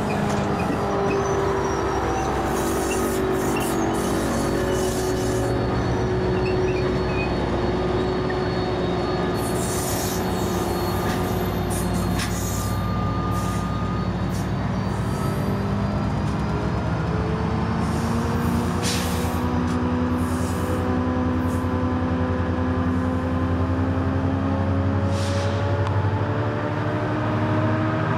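New Jersey Transit diesel locomotive and multilevel passenger train running by: a steady diesel engine drone with rail rumble, the engine's pitch gliding and climbing over the last several seconds as it throttles up. A few short high-pitched hisses stand out over it.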